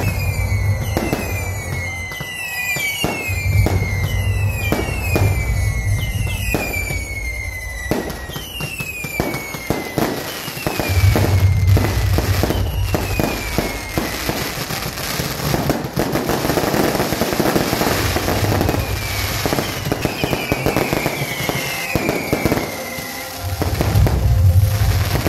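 Fireworks display firing in rapid succession: many sharp crackling bangs, with whistling shells whose whistles fall in pitch, about two a second. The whistles thin out in the middle and return near the end.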